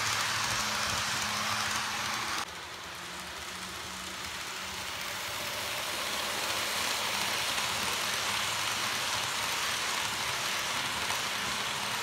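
N scale model trains running on the layout: a steady hiss of small metal wheels rolling on the rails over a faint low hum. The sound drops suddenly about two and a half seconds in, then slowly builds as the next train draws closer.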